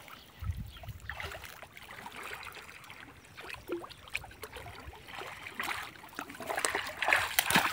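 Shallow muddy water sloshing and splashing as people wade through it and grope along the bottom with their hands, in scattered small splashes that grow busier toward the end.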